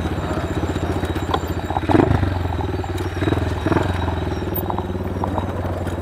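Small motorcycle engine running steadily at low speed on a dirt track, with a couple of louder knocks and rattles about two and three and a half seconds in.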